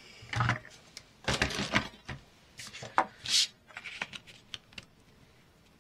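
Sheets of thin card handled and slid on a cutting mat, with clicks and knocks from a sliding paper trimmer, in short separate bursts that die away in the last second or so.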